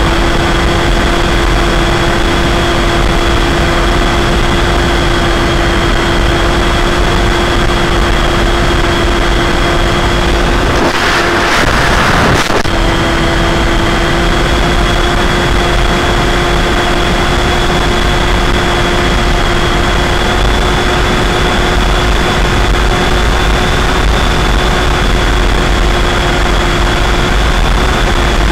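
Onboard sound of an Easystar II RC model plane's electric motor and pusher propeller, recorded from the plane in flight. A steady whine runs over rushing airflow and low wind buffeting on the microphone. Near the middle the whine breaks off for about a second and a half, replaced by a burst of rushing noise, then returns at the same pitch.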